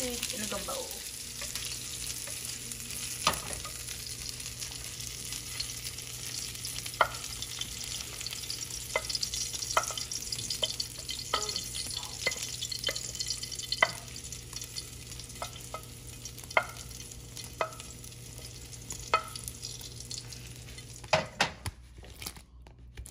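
Sliced sausage sizzling in hot oil in a frying pan, with a spoon clicking against the cookware every second or two as it is stirred. The sizzle slowly fades and cuts off near the end.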